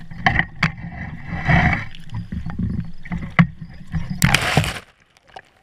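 Landing net scooped through shallow water at the shore while netting a pike: splashing and sloshing water with knocks and rattles of the net frame and handle, over a low rumble. A louder burst comes about four seconds in, then the sound drops off sharply.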